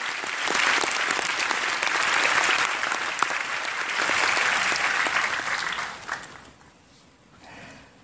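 Concert audience applauding, dying away about six seconds in.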